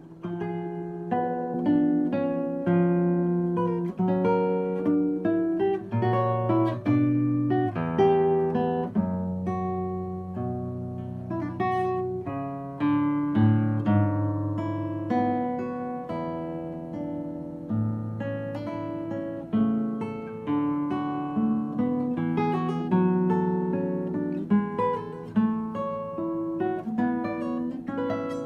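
Solo nylon-string classical guitar played fingerstyle: a continuous flowing passage of plucked melody notes over bass notes.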